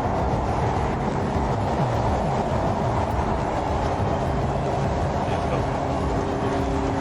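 Steady road and engine noise of a moving car: an even low rumble with a faint steady hum.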